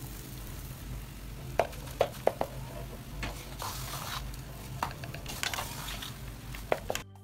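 Wooden spatula stirring and mashing boiled tapioca mixed with grated coconut in an aluminium pot, with several sharp knocks of the spatula against the pot over a steady low hiss. This is the coconut being mixed into the mashed cassava for kappa puzhukku.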